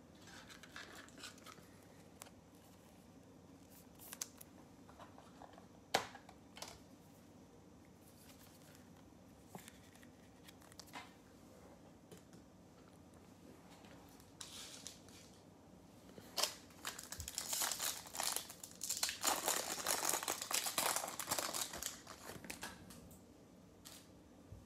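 A few light clicks and taps of cards and plastic card holders being handled, then, about two-thirds of the way in, a Topps Chrome baseball card pack's wrapper being torn open and crinkled for several seconds.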